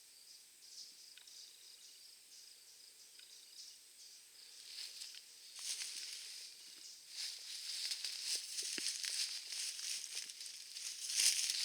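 Rustling and crackling of dry leaves and brush. It is faint at first and grows louder and busier from about five seconds in.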